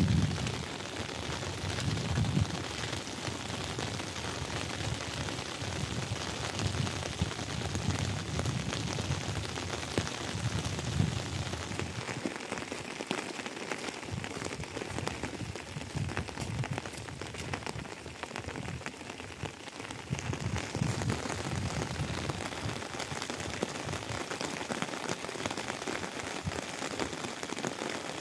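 Steady rain, an even hiss throughout, with an irregular low rumble in the first twelve seconds or so and again around twenty seconds in.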